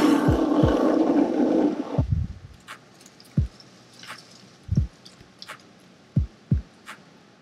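Water from a garden hose running into a plastic bucket for about two seconds, then cutting off. After that, a sparse, deep bass-drum beat of background music.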